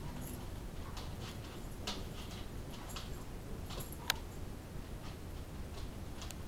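Basset hounds' claws clicking and scuffling on a hardwood floor as they wrestle, in scattered irregular taps, with one sharper click about four seconds in.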